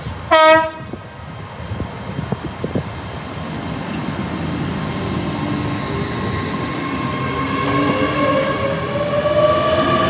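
A short, loud train horn blast about half a second in. Then a passing train: wheel clicks, and a whine that slowly rises in pitch and grows louder toward the end.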